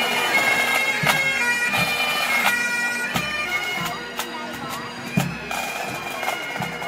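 Bagpipes playing a tune over their steady drone, with a few loud, sharp strikes.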